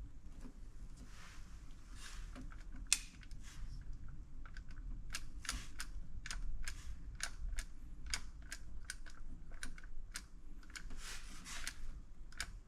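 Light, irregular clicking, several clicks a second in stretches and denser from about halfway in, as the power window switch is pressed repeatedly while checking for power at the window motor.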